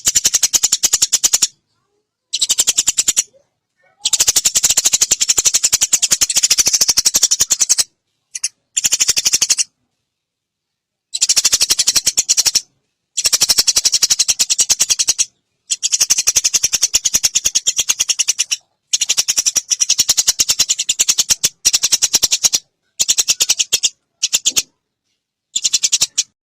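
Eurasian tree sparrows chattering: very rapid runs of sharp, high chirps in bursts of one to four seconds, broken by silent gaps.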